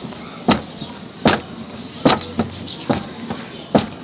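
Paratha dough being slapped and pressed against an oiled flat steel counter as it is stretched thin: a series of about seven sharp slaps at uneven intervals, the loudest near the end.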